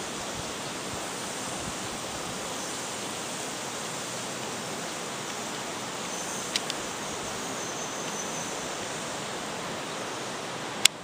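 Shallow river running over a rocky bed: a steady rushing hiss. A couple of faint clicks come about two-thirds of the way through, and a single sharp click, the loudest sound, comes just before the end.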